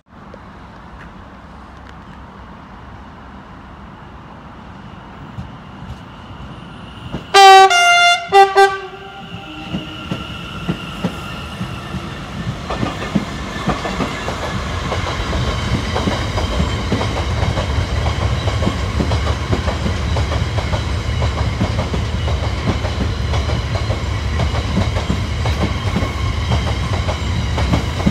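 A train horn sounds in two short blasts about seven seconds in, the loudest sound. Then a GBRf Class 66 diesel locomotive and its freight wagons pass close by, the engine rumble and wheel clickety-clack growing louder and running on steadily.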